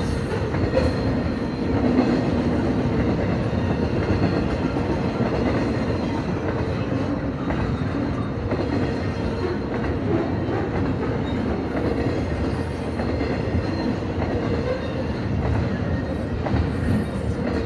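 Double-stack intermodal container cars of a long freight train rolling past at close range: steel wheels running on the rails, with a steady, even noise and no let-up.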